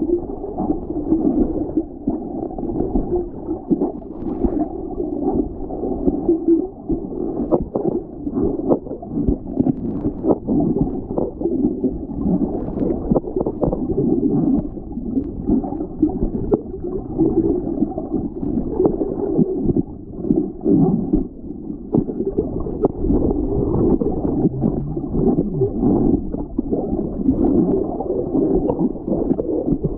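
Water sloshing and gurgling, heard muffled as through an underwater camera housing, with scattered small knocks.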